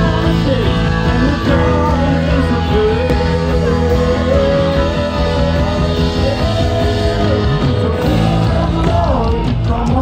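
Christian worship song with a band: a voice singing long held notes over rock-style backing.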